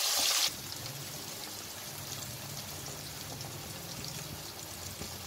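Cornstarch-coated corn kernels deep-frying in hot oil, a steady sizzle with fine crackling. It is louder at first while a slotted spoon stirs them, then about half a second in it drops sharply to a quieter sizzle.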